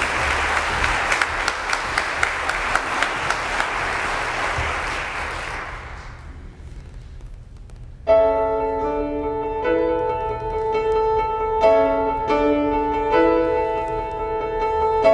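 Audience applause that dies away about six seconds in; after a short lull, a grand piano begins the opening accompaniment of a musical-theatre song, playing steady chords.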